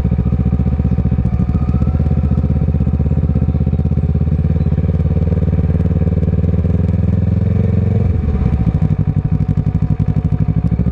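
Kawasaki ER6N's parallel-twin engine, breathing through a Scorpion aftermarket exhaust, running steadily at low revs while the bike is ridden, with a brief dip in revs about eight seconds in.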